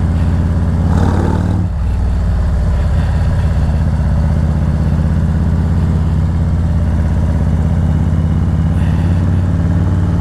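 Harley-Davidson Road Glide Special's V-twin engine running under way at a steady speed, a continuous low engine note.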